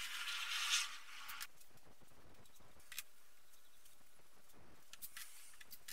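Masking tape and plastic masking film being handled on a car body: a loud rasping rush lasting about a second and a half at the start, then a few faint crinkles and light ticks as the tape and film are pressed down.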